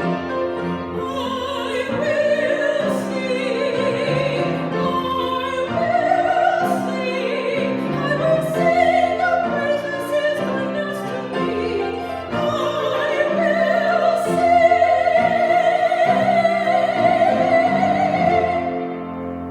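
A singer with a wide vibrato, accompanied by sustained instrumental chords, holding long notes. The music fades out near the end.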